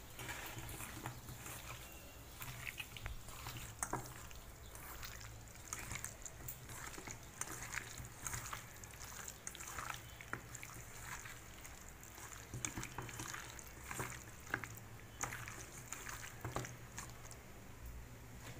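Raw chicken pieces being mixed and rubbed by hand with spices in a stainless steel bowl: irregular wet squelching and soft clicks.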